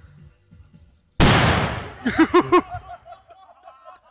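A single loud bang about a second in, from a homemade ground cannon being fired with a flaming stick, its sound falling away over most of a second. Right after it, a voice calls out in a few quick rising-and-falling syllables.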